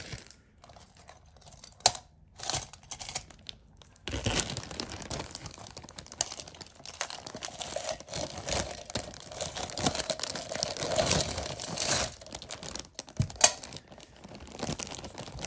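A clear plastic zip-top bag full of costume jewelry crinkling as it is handled and opened, thickest from about four seconds in until about twelve seconds. A few sharp clicks come before and after it.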